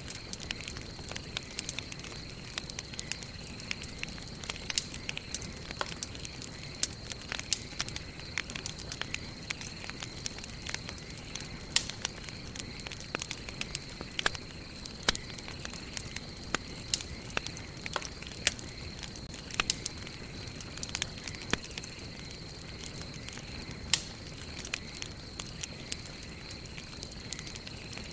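Wood fire crackling: frequent, irregular sharp pops and snaps over a soft steady hiss of burning. A thin, steady high tone sits behind it.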